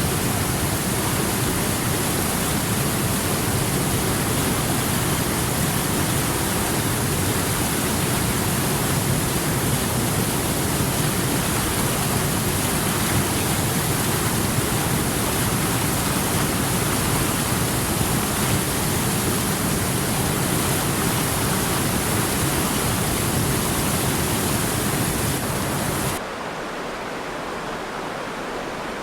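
River water rushing steadily. Near the end it cuts abruptly to a quieter, thinner rush of water with less low rumble.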